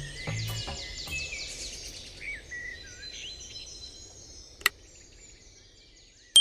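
Background music ends in the first half second, leaving birds chirping and insects calling, which fade down over the next few seconds. A single sharp click comes about four and a half seconds in, and a bright ding starts at the very end.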